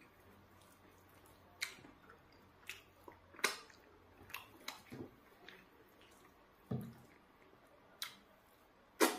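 Close-up eating by hand: scattered wet clicks and smacks from chewing and from fingers pressing soft eba, with the loudest smack near the end.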